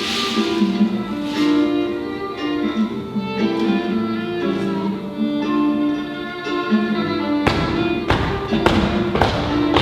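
Instrumental music with a melody of sustained notes; about three-quarters of the way in, heavy percussive beats come in at roughly two a second.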